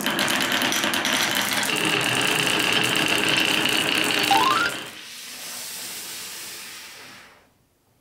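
Marbles rolling and clacking along wooden marble-run tracks, a dense rattling clatter. About five seconds in it drops to a softer rolling hiss, which stops shortly before the end.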